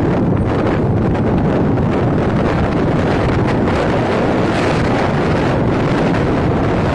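Loud, steady wind noise buffeting the microphone of a motorcycle riding at speed, with the bike's engine running under it.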